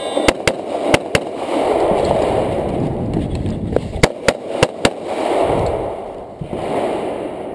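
Rapid gunshots on a timed practical-shooting stage, mostly fired in quick pairs. There are two pairs in the first second and a half, then a faster string of about five shots around four to five seconds in, with a rushing noise between the strings.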